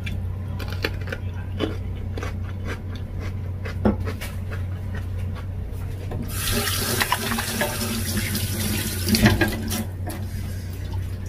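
Kitchen faucet running into a stainless steel sink for about four seconds, starting a little past six seconds in and then shut off. Before it, scattered crisp clicks of chewing on a raw cucumber.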